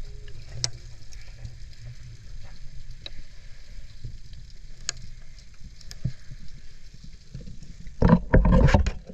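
Underwater sound through a GoPro's housing in shallow sea water: a steady low rumble with scattered sharp clicks. About eight seconds in, loud sloshing and splashing as the camera breaks the surface.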